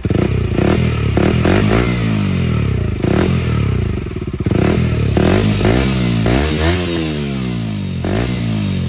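KTM Duke 125's single-cylinder engine blipped repeatedly through an Akrapovic full-system exhaust, pitch jumping up and dropping back with each twist of the throttle, with one longer rev and fall about six to seven seconds in.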